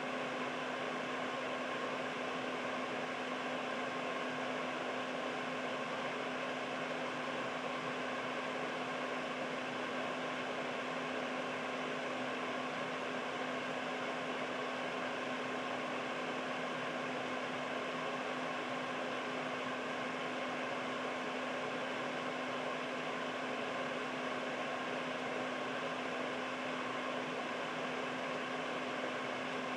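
Household air purifier running steadily: an even fan whoosh with a steady low hum and a faint higher whine.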